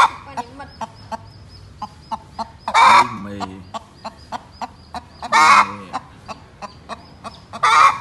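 Loud, harsh poultry calls about every two and a half seconds, four in all, each with a short falling tail, with a scatter of small sharp clicks in between.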